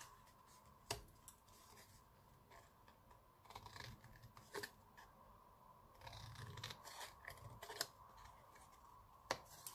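Scissors snipping black cardstock, cutting small triangular notches into its edge: faint, irregular snips with pauses between them.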